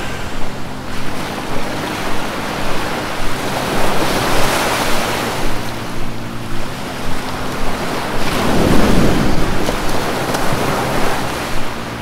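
Rushing whitewater of a river rapid: a steady noise of churning, breaking water.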